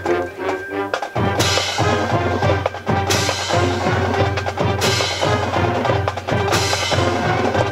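High school band playing: a steady percussion beat under low brass notes and a melody, with four cymbal crashes evenly spaced about one and a half seconds apart.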